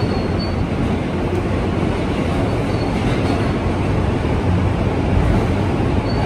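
New York City subway F train running, heard from inside the car: a steady, loud rumble from the wheels on the track, with a few faint, brief high squeals.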